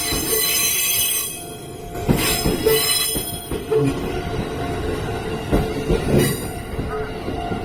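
An E233-8000 series electric train rolls past with a steady rumble, its wheels squealing in high-pitched bursts, the longest two in the first half. A level crossing alarm is ringing.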